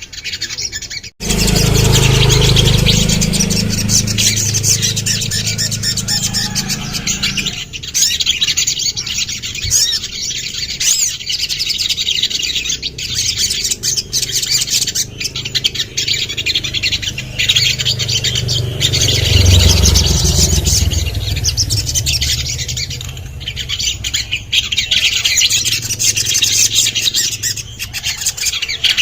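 Crimson sunbird (sogon) singing: a dense run of rapid, high chirps and trills, broken by a brief dropout about a second in, with a low rumble underneath at times.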